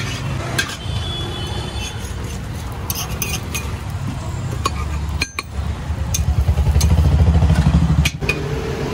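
A metal spatula clinks and scrapes on a dosa griddle and steel pots, a handful of short sharp clinks, over a steady low rumble of street traffic that swells for a couple of seconds near the end.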